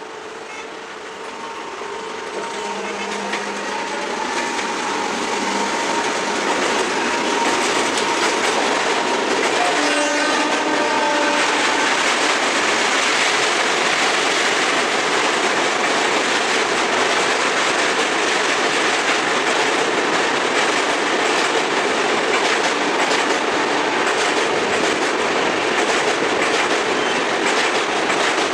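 Express passenger train hauled by a WAP-7 electric locomotive, approaching and passing: the rumble builds over the first several seconds, then the coaches' wheels clatter loudly and steadily over the rail joints. The locomotive's horn sounds briefly about ten seconds in.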